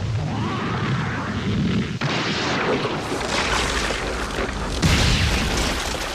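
Anime giant-robot battle sound effects: dense crashing impacts over a heavy rumble as Evangelion Unit-02 tears into a Mass Production Evangelion. They start suddenly, with a louder hit about five seconds in.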